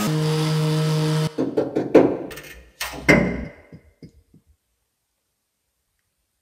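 Angle grinder with a flap disc running against a sheet-metal panel for about a second, then cutting off, followed by a string of knocks and thuds that die away about four seconds in.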